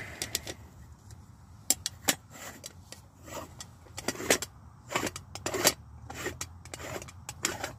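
Stovetop moka pot being screwed together by hand: a string of sharp metallic clicks and knocks as the top chamber is twisted and knocked onto the base.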